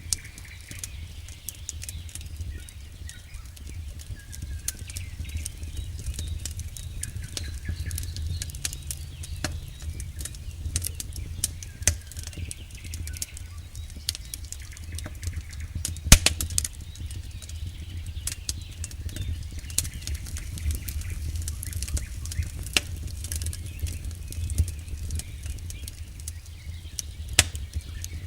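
Wood campfire crackling, with irregular sharp pops from the burning logs, the loudest about sixteen seconds in, over a steady low rumble.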